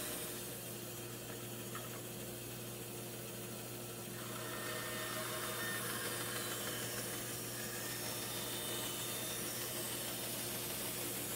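Band saw running with a steady motor hum while its narrow blade rip-cuts a solid wood blank, the hiss of the cut growing louder from about four seconds in. These are stopped kerf cuts into the blank, made so it can be bent.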